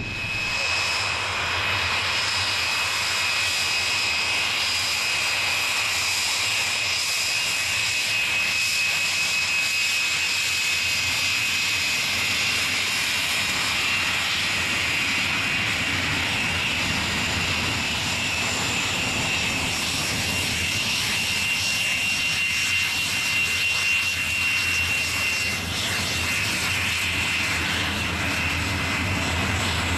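Folland Gnat jet trainers' Bristol Siddeley Orpheus turbojets running as the jets taxi: a steady high whine over a constant rushing noise.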